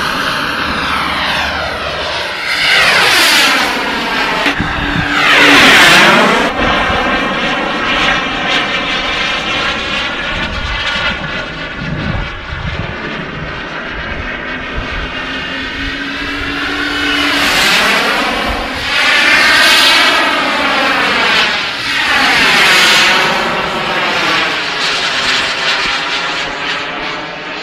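Radio-controlled model airplane's engine running in flight, its pitch swinging up and down and growing loud in about four passes.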